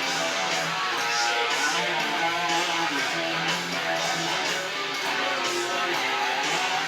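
Guitar-led music with strummed guitar and a steady beat.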